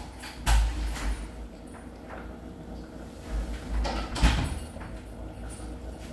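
A door being opened and shut, with several dull thumps; the loudest comes about half a second in and another about four seconds in.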